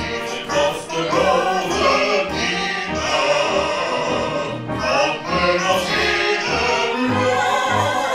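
Choir singing a hymn-like song to orchestral accompaniment, with a steady drum beat underneath.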